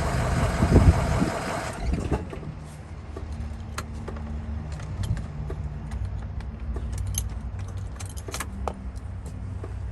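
Van engine idling, then switched off about two seconds in. Afterwards, keys jangle, with a few light clicks.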